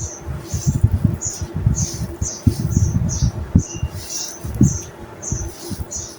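Dry clay crumbling: chunks are crushed and break apart in a run of irregular soft crunches and knocks, with a short high chirp repeating about twice a second.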